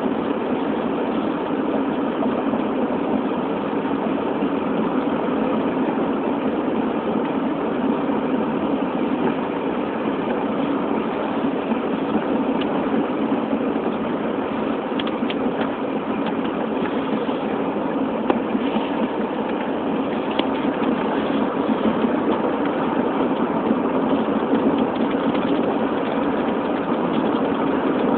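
Steady engine and road noise of a car being driven, heard from inside the cabin, with a few faint ticks about halfway through.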